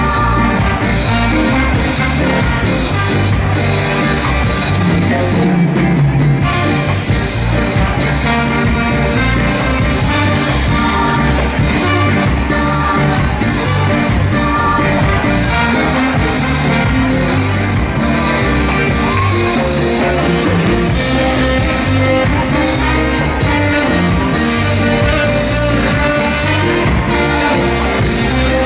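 Live ska band playing: a horn section of tenor saxophone, trumpet and trombone over keyboard, guitar and drums keeping a steady beat.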